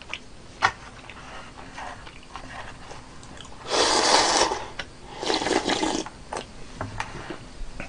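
A person slurping hot broth from the rim of a bowl: two noisy slurps of about a second each, half a second apart, after a light click under a second in.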